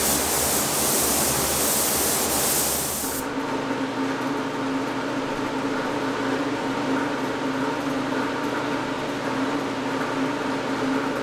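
Gravity-feed paint spray gun hissing as it sprays paint, cutting off abruptly about three seconds in. After that, a steady machine hum with a low drone.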